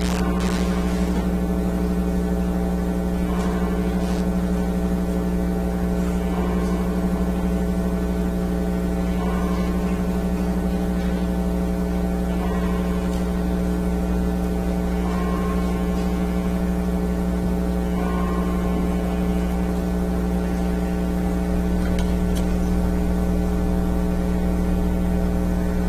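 Steady electrical mains hum and buzz with a stack of overtones, unchanging throughout, with faint soft knocks every few seconds.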